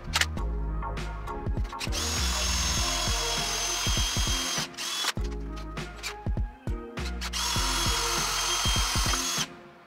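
Cordless drill running in two bursts of about two to three seconds each, with a steady high whine, over background music with a beat.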